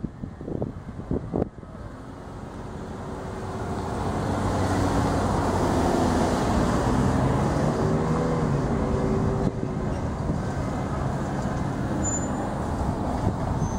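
Road traffic: a motor vehicle grows louder over a few seconds, passes with a low engine hum, then eases off. Wind gusts on the microphone at the start.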